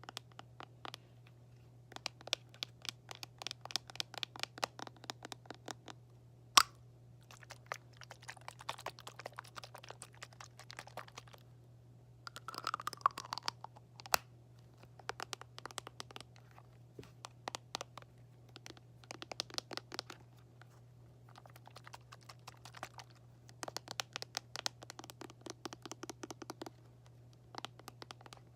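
Fingers tapping and scratching on assorted hard objects in quick, clustered runs of light taps, with one sharp louder click about six and a half seconds in and a brief falling squeak around the middle.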